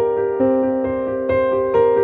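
Background music: a slow, gentle keyboard melody, with single notes struck every half second or so and left to ring.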